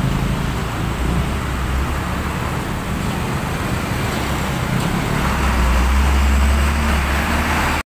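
Busy road traffic: a stream of motorcycles and cars passing close by, with a tanker truck going past in the middle. A low engine rumble grows loudest in the last few seconds, then the sound cuts off abruptly.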